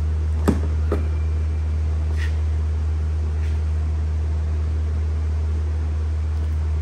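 Two sharp metal clicks about half a second and a second in, as an 80 mm cap-type oil filter wrench on a socket extension is hooked onto the oil filter housing. A steady low hum runs underneath.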